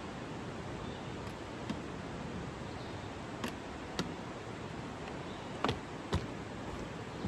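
Steady rushing of a river running close beside the trail, with about six sharp, irregularly spaced ticks of walking on the trail over it.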